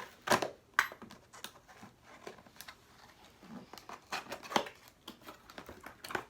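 Packaging being handled: crinkling plastic and cardboard rustling with irregular clicks and knocks, the loudest two within the first second, as the scooter's handlebar is pulled from its wrapping.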